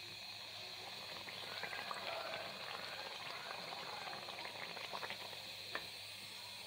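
Antasha pitha deep-frying in hot oil in a karai: a faint steady sizzle, with busier crackling and bubbling in the middle, and one sharp tap near the end as the metal slotted spoon handles the cake.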